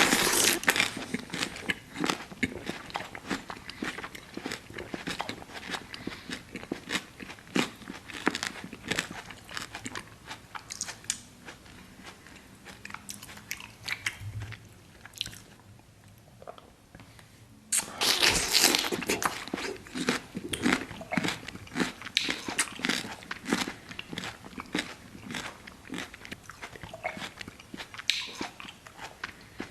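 Close-miked ASMR eating sounds: crunchy bites and chewing in dense runs of sharp clicks. The first loud run starts at the beginning and thins out to a lull, and a second loud run starts about 18 seconds in.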